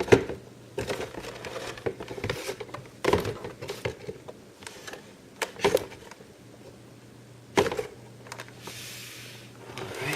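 Hands handling an action figure's plastic packaging: scattered clicks and knocks of plastic against plastic and cardboard, with a soft crinkling rustle near the end.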